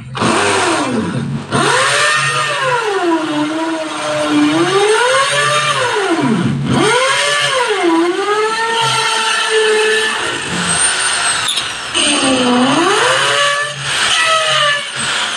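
Corded electric drill boring into a concrete wall, its motor whine rising and falling in pitch as the bit loads up and the trigger is eased, over a gritty grinding. The whine drops out briefly about ten seconds in and then picks up again.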